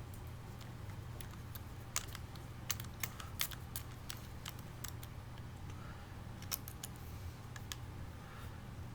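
Irregular small sharp clicks and taps of metal parts being handled as the wing nut of a scope mount is put on and turned through an AR-15 A2 carry handle, starting about two seconds in and thinning out near the end.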